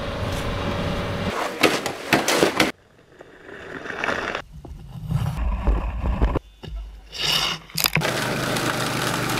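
Snow-clearing machines heard in quick cuts: a compact tractor's engine running with its plow blade scraping the pavement, then, about eight seconds in, a Honda snowblower's engine running steadily as it throws snow.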